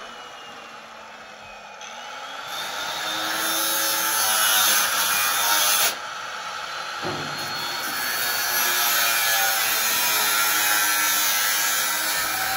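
A power tool running with a loud hissing whine. It stops abruptly about six seconds in and starts again a second later.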